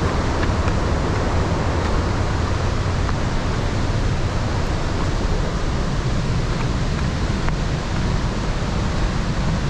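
Steady, loud rush of the Iguazu Falls' cascades, an unbroken wash of water noise with a deep rumble underneath.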